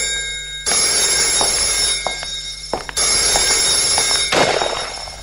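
Telephone ringing in repeated bursts, a new ring starting about every two and a half seconds, each cutting in sharply and then fading.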